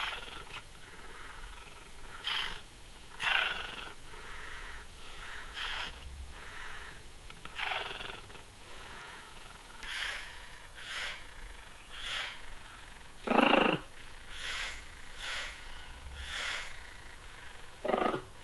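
Cat purring, swelling and easing in uneven pulses about every second or two as it breathes, with a louder swell about thirteen seconds in.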